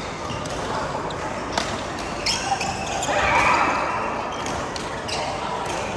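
Badminton rally: several sharp smacks of rackets hitting the shuttlecock. A louder, higher sound comes a little past halfway.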